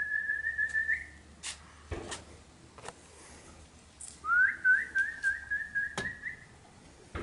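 A man whistling to call homing pigeons down to the loft: one long steady whistle that ends about a second in, then a second whistle that rises and warbles for about two seconds. A few sharp clicks fall between them.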